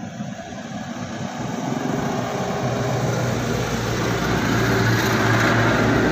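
A small engine running steadily, growing louder over the first few seconds as it comes closer.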